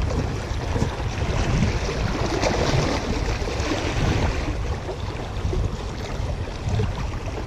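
Wind buffeting the microphone, over sea water lapping against shoreline rocks.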